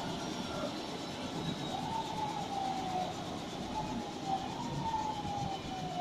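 Police helicopter running on the ground with its main rotor turning, a steady engine and rotor noise under a whine that slides down in pitch and jumps back up several times.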